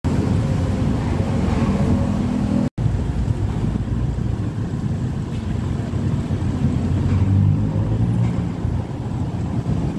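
Steady low outdoor rumble, with a brief cut to silence a little under three seconds in.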